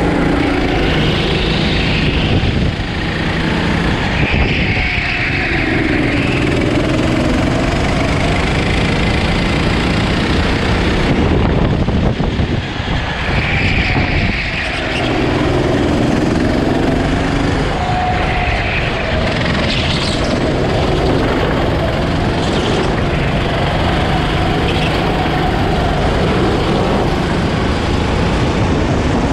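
Go-kart engine running at speed, heard from on board the kart, with the level dipping briefly a few times.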